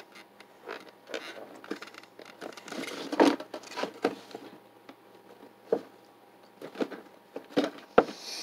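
A cardboard die-cast model car box being handled by hand: irregular taps, scrapes and knocks, with a sharper knock about three seconds in and another near the end.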